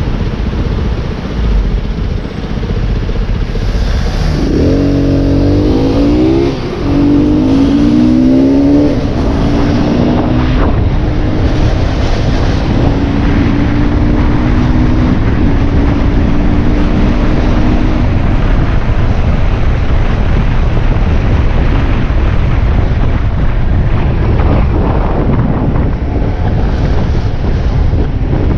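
Motorbike engine pulling away, rising in pitch three times with a brief drop at each gear change, then holding a steady note while cruising. Wind rushes over the microphone throughout.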